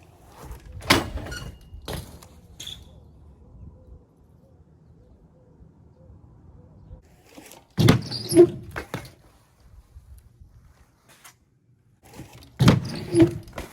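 BMX bike being ridden for trick clips: a few light knocks in the first few seconds, then two loud clattering impacts of the bike landing or hitting an obstacle, one near the middle and one near the end.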